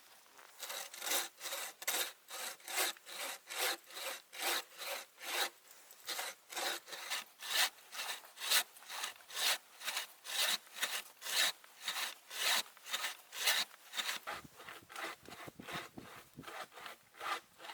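Hand saw cutting wood in steady back-and-forth strokes, about two a second. The strokes grow fainter near the end.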